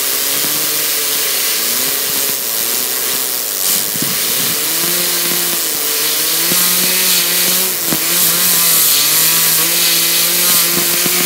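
Compressed air from an air-compressor nozzle hissing, stinking loud, as it is blasted at a LEGO fidget spinner, with a whirring tone underneath that rises, dips and wavers as the spinner is driven up to speed.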